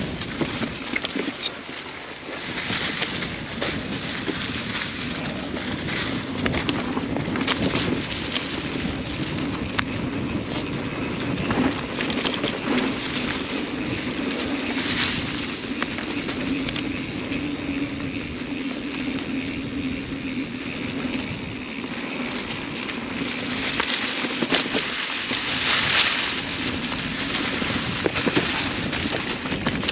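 Mountain bike riding along a dirt trail: tyres rolling and crunching over dirt and rock, with a steady hum, scattered sharp knocks and rattles from the bike, and swells of louder rushing noise every several seconds.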